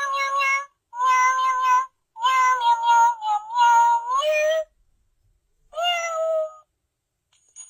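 Pets Alive Smitten Kittens Siamese plush cat toy playing recorded kitten meows through its speaker: a string of meows with short pauses between them, and one more after a longer pause near the end.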